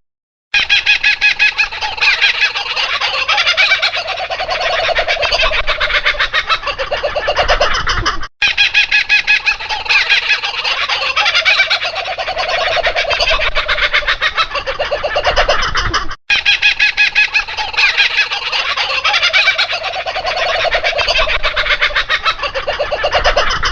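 Laughing kookaburras calling together, loud rapid rolling laughs that rise and fall. The same eight-second call sequence plays three times, with brief silent breaks between.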